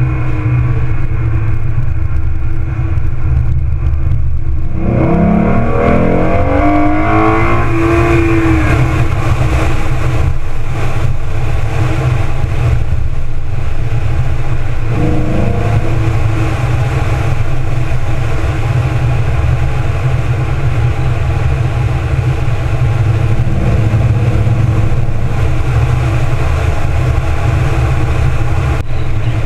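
2014 Ford Mustang's 3.7-litre V6 under way with its automatic gearbox, heard under heavy wind and road rumble on a hood-mounted microphone. The engine note rises in pitch as the car accelerates about five seconds in, and rises again briefly around the middle.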